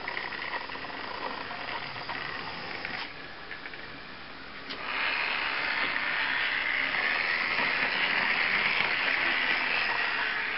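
Whirring of a model trolleybus's small electric motor and drive gearing running along the layout; it grows louder about five seconds in, as the model runs close by.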